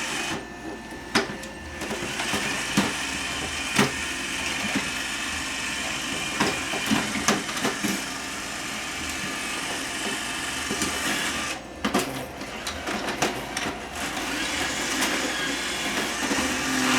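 iRobot Roomba robot vacuum running steadily, with irregular sharp knocks and clicks as it bumps and turns while trying to free itself after getting stuck.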